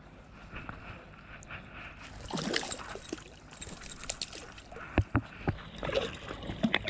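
Water splashing and sloshing, starting a couple of seconds in, with a few sharp knocks and splashes near the end, from a small hooked smallmouth bass being brought in at the water's edge.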